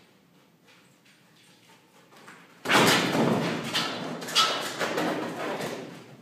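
A Belgian Malinois scrambling up the inside of an empty above-ground pool's vinyl wall: starting suddenly about two and a half seconds in, a loud scraping and rattling of the wall and frame with several thuds, for about three seconds, easing off near the end.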